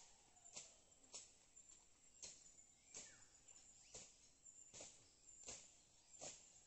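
Repeated sharp chopping strikes, roughly one every half second to a second, of a bolo being swung to slash weeds and brush.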